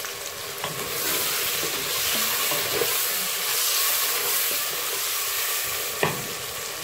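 Chopped onions sizzling in hot oil in a pressure cooker while a wooden spatula stirs them, scraping the pot, at the start of frying them to light golden brown. The sizzle swells about a second in, and there is one sharper knock near the end.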